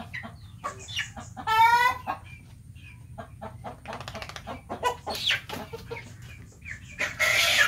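Chickens clucking, with one loud squawk about one and a half seconds in, while a hen is held for a vaccine injection. Short knocks and clicks from handling the birds, and a loud rustling burst near the end.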